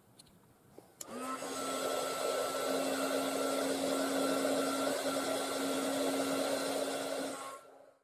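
Hot-air blower switched on with a click about a second in. Its fan motor spins up to a steady hum over a rush of air while it shrinks heat-shrink tubing over the connector's soldered wires, then it switches off shortly before the end.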